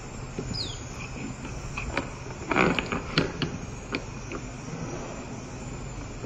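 Plastic baby toy keys clacking and rattling as a young white-faced saki monkey handles them, a quick cluster of clicks near the middle, over a steady background hum. A short high chirp falling in pitch sounds about half a second in.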